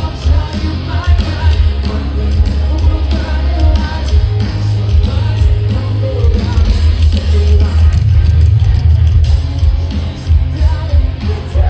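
Live rock band playing loud amplified music with a singer, the bass heavy and dense throughout.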